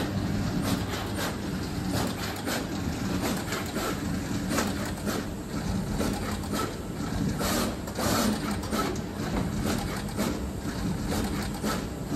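Juki RS-1R pick-and-place machine running, its placement head at work with a rapid, irregular clicking and clatter over a steady low hum.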